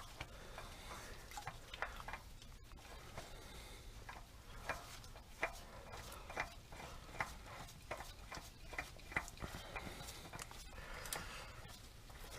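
Faint, irregular clicks and scrapes of a new spin-on oil filter being handled and threaded onto its housing by hand.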